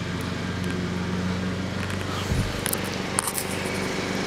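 A steady low motor hum, with a short low thump a little over two seconds in and a few sharp clicks around three seconds.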